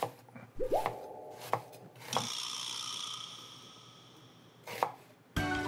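Kitchen knife chopping an onion on a cutting board: a few separate sharp strokes. About a second in, a tone rises and holds for about a second, and from about two seconds a high ringing sound fades slowly away.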